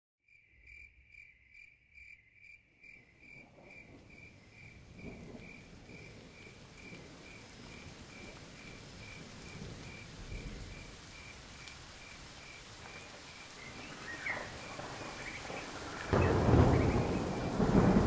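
Rain with a cricket chirping steadily at one high pitch, about three to four chirps a second. The rain hiss fades in over the first few seconds. A loud clap of thunder rumbles in about two seconds before the end.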